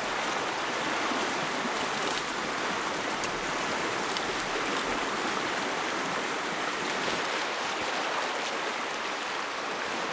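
River rapids rushing steadily, with a few faint crackles from a wood campfire.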